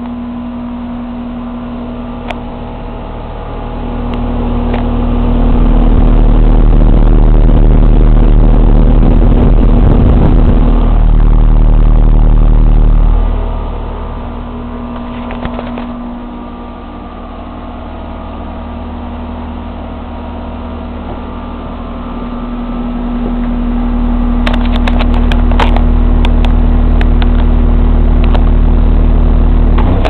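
Heil outdoor air-conditioning condensing unit running: a steady compressor hum under the condenser fan's air noise. The sound twice swells into a much louder deep rumble for several seconds, and a few sharp clicks come near the end.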